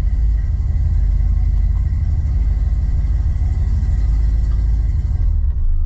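A 1981 Chevrolet C10 pickup running on the road, heard from inside the cab: a steady low rumble of engine and road noise.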